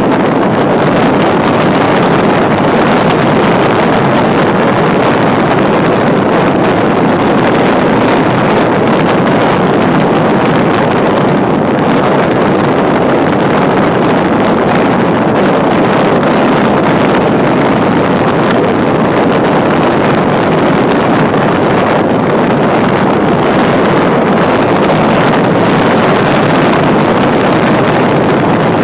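Loud, steady wind rushing over a microphone mounted on the bonnet of a moving four-wheel drive, at an even level throughout.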